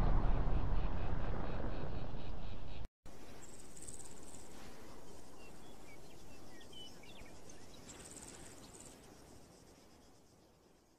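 Deep rumble dying away after an explosion, cut off abruptly about three seconds in. Then quieter outdoor ambience with insects chirping in short repeated trills and a few faint bird chirps, fading out.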